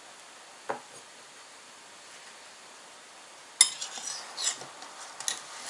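A spoon clinking and scraping against a ceramic bowl while scooping ice cream. The clinks begin about three and a half seconds in, the first the loudest; one short knock comes earlier, just under a second in.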